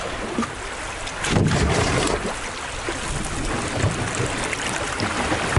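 River water rushing around a canoe as it runs a shallow, rough stretch, with wind buffeting the microphone and a few short knocks.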